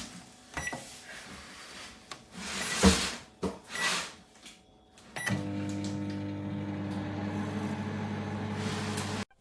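Toshiba 800 W digital microwave oven: a few short keypad beeps and clicks, then about five seconds in the oven starts and runs with a steady low hum, which cuts off suddenly just before the end.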